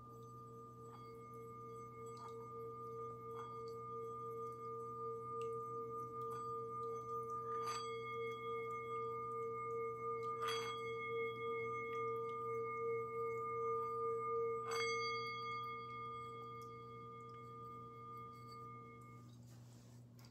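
Hand-held metal singing bowl rubbed around its rim with a wooden mallet: one steady ringing tone with higher overtones that slowly swells, then fades and stops near the end. The mallet knocks lightly against the bowl three times.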